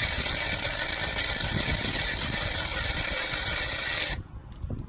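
Compressed air hissing in one steady, loud blast that cuts off suddenly about four seconds in.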